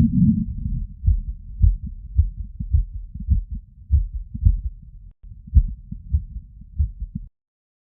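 Human heartbeat heard through a stethoscope, raised after physical exertion: fast, low lub-dub beats at roughly two a second. The beats cut off suddenly near the end.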